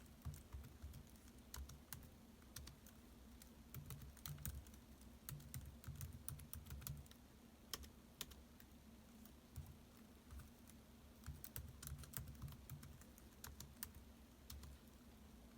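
Laptop keyboard typing: quiet, quick key clicks in uneven runs with short pauses, thinning out near the end. A faint steady low hum lies underneath.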